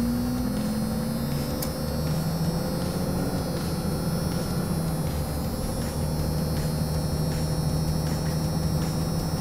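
Cummins diesel engine and drivetrain of a second-gen Dodge pickup heard from inside the cab while driving, a steady low drone with a faint held tone over it. The drone shifts slightly about six seconds in.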